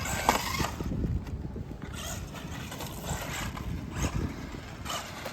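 Small electric RC car driving over rough ground: tires scuffing and the chassis knocking, with wind on the microphone.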